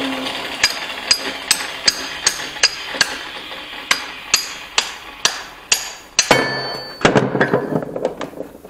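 Hammer blows on metal, about two and a half a second and fairly even, some of them leaving a short metallic ring. A denser clatter of knocks follows near the end. The steel footpeg mount on the moped's frame is being knocked at as it is cut off.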